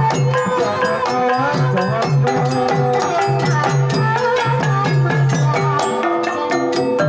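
Javanese Banyumasan gamelan playing a tayub piece: a kendang hand drum keeps a steady rhythm over struck bronze metallophones, pot gongs and gongs, with a sinden (female singer) singing over the ensemble.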